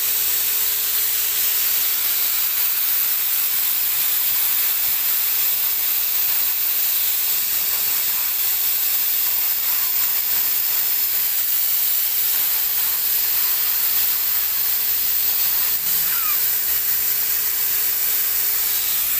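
Wagner PaintReady Station HVLP turbine paint sprayer running steadily. The spray gun gives a strong, even hiss of air and atomised paint over a steady single-note whine from the turbine.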